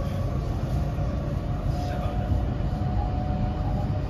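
Running noise heard inside the motor car of a JR West 225-100 series electric train: a steady rumble of wheels on rail, with a faint thin whine from its Toshiba IGBT VVVF inverter and traction motors.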